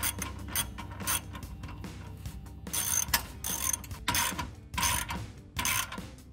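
Hand ratchet wrench clicking in a series of short back-and-forth strokes, irregularly spaced, as exhaust clamp nuts are run down and tightened.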